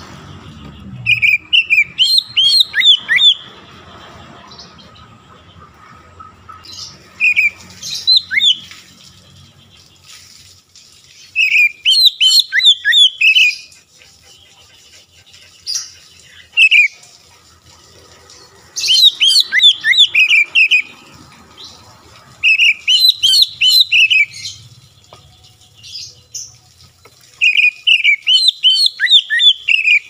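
An oriental magpie-robin singing: about seven loud bursts of rapid, varied whistled notes that slide up and down, each burst one to two seconds long, with pauses of a few seconds between them.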